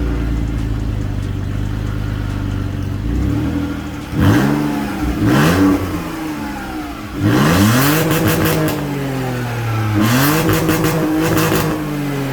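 BMW E46 engine running through a custom exhaust: steady at first, then revved up quickly four times, each rev holding high before dropping back, with a raspy crackle on the last two.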